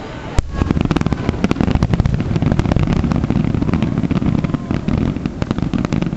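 Fireworks going off: a sharp bang about half a second in, then a dense run of rapid crackling pops.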